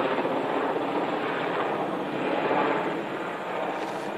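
Two helicopters flying overhead, with steady rotor and engine noise.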